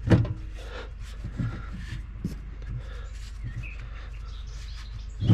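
A series of sharp knocks, with a louder one just after the start and another near the end, and small birds chirping in the background.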